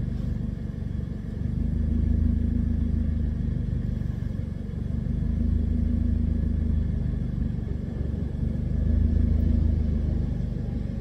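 Car engine idling, heard from inside the cabin: a steady low hum that swells and eases every few seconds.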